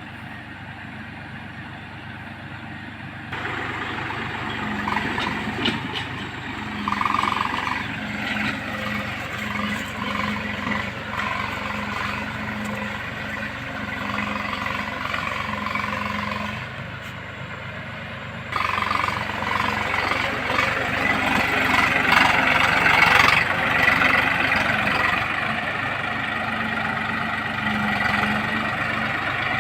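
Massey Ferguson 1035's three-cylinder diesel engine running steadily while pulling a disc plough through hard ground. The sound steps abruptly louder about three seconds in and again just past halfway.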